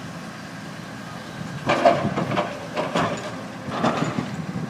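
Demolition excavator at work: its engine runs steadily, and from just under two seconds in there is a series of irregular crunching, clattering bangs as the machine breaks up the building.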